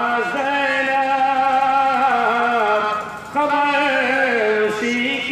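A man chanting an Urdu couplet to a slow melody into a microphone, holding long notes whose pitch wavers and bends. There are two long drawn-out phrases with a brief breath between them a little after three seconds in.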